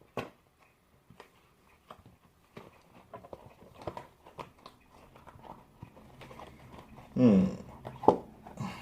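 Scattered soft crackles and taps of hands handling the torn-open foam core and cloth of a dodgeball. A brief murmur of a voice comes about seven seconds in.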